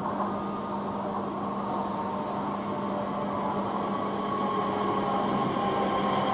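South Western Railway Class 444 Desiro electric multiple unit approaching on the rails, a steady hum with a higher whine over wheel-on-rail noise, growing louder as it nears.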